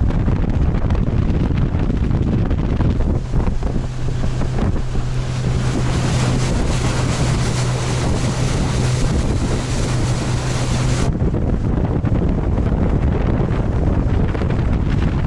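Wind buffeting the microphone over a motorboat running on the river. A steady engine hum comes in about four seconds in and cuts off suddenly about two-thirds of the way through.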